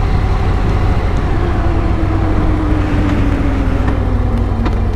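Motorcycle under way, with heavy wind rumble on the microphone and the engine note falling slowly and steadily.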